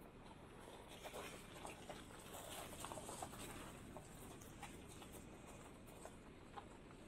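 Faint low rumble of a car crawling over a rocky dirt track, with scattered small clicks and crunches of gravel and stones under the tyres, thickest in the first half.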